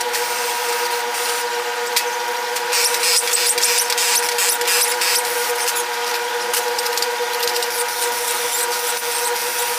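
Tools at work during a Top Fuel engine teardown: a steady machine hum, with hissing swells and scattered sharp clicks and clanks of tools.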